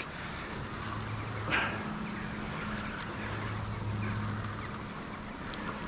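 Steady rush of a big river running high, with a low, steady hum underneath and a brief hiss about a second and a half in.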